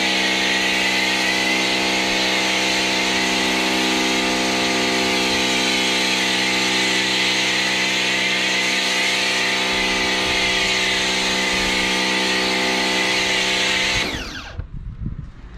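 Bosch Aquatak 110 electric pressure washer running under load, its motor and pump humming steadily under the hiss of the Autoglym foam lance spraying snow foam. About fourteen seconds in the trigger is released and the motor winds down, falling in pitch.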